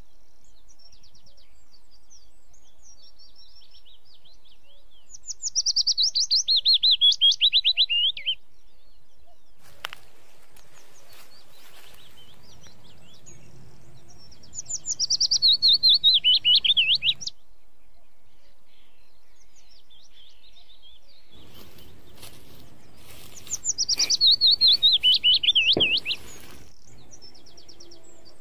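A songbird repeating one loud song phrase three times, about nine seconds apart: each is a fast run of high notes falling in pitch over about three seconds. Faint rustling and a few clicks can be heard between the phrases.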